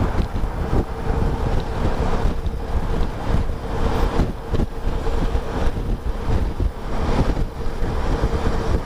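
Wind buffeting the microphone of a motorcycle cruising at about 80 km/h, over the steady drone of its engine and tyres, with a constant hum running through it.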